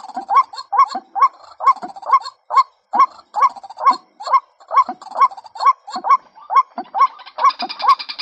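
Female white-breasted waterhen calling: a short hooked note repeated steadily about two and a half times a second, as used for a bird-trapping decoy call. Near the end a higher buzzing trill joins in.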